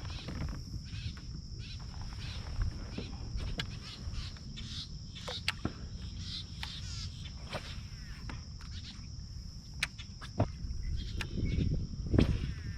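A steady, high insect drone, with birds calling through the middle. Under it runs a low rumble, with scattered sharp clicks and knocks.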